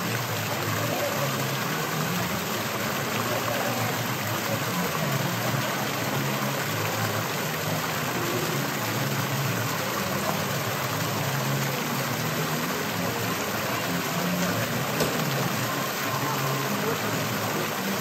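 Steady rushing background noise under a low murmur of passing voices, unbroken throughout.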